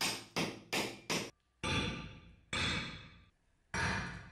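A heavy butcher's axe chopping into a large meat bone on a wooden stump: seven sharp chops, a quick run of four, then three more about a second apart.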